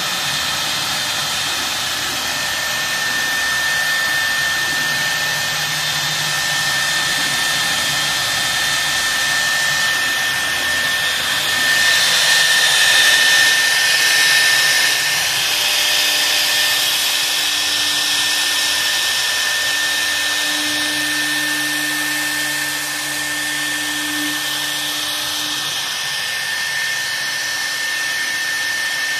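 3 kW spindle of a CNC router running its bit through MDF: a steady high whine over the hiss of the cut, swelling louder for a few seconds around the middle.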